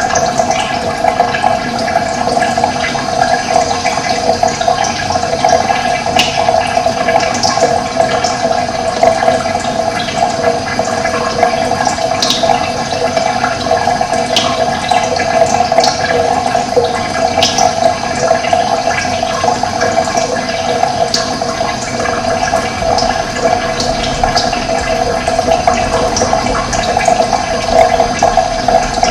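Running water, a steady rushing flow, with short high bird chirps scattered through it.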